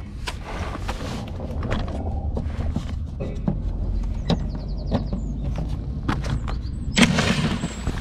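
Milwaukee cordless impact wrench running in a short burst about seven seconds in, spinning out an undertray fastener, after several knocks and clicks of the tool being handled against the underside.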